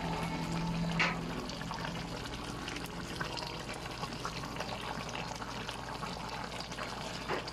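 Coconut-milk sauce simmering in a wok with fried fish and greens, bubbling and crackling steadily. A low steady hum fades out about halfway through, and there is a short click about a second in.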